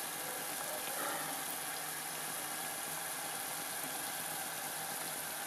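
Yum yum dough pieces deep-frying in shallow hot oil: a steady, even sizzle.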